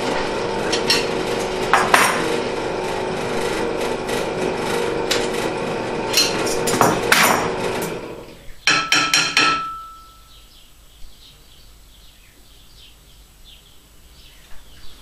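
Bench drill press motor running steadily, with occasional sharp metal knocks, then switched off about eight seconds in; just after it stops, a quick run of metal clanks, one ringing briefly.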